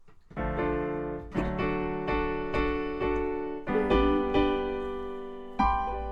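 Piano playing a slow series of chords, each struck and left to ring down before the next.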